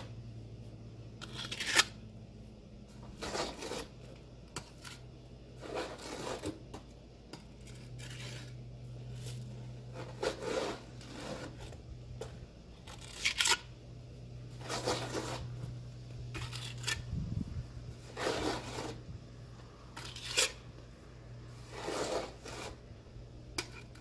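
Steel mason's trowel scraping and slapping mortar onto the top edges of a concrete block, about a dozen irregular strokes over a steady low hum.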